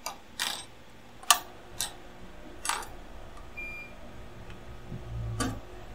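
Scattered sharp clicks and taps of small metal hand tools at a microsoldering bench, six or so spread irregularly, one about a second in the loudest. Midway there is a short electronic beep.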